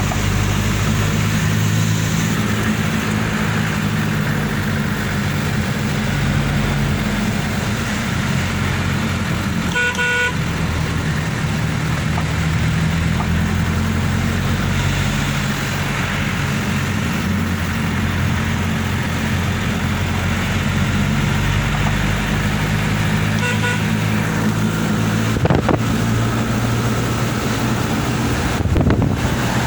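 Vehicle engine running steadily, pulling along an off-road track. There is a short tonal toot about ten seconds in and a fainter one later, and two brief knocks near the end.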